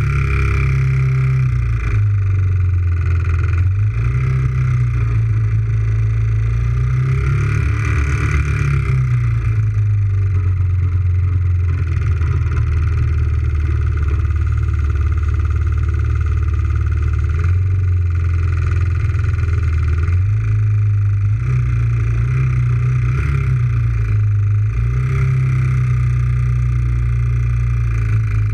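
Quad (ATV) engine running steadily, its revs rising and falling a few times.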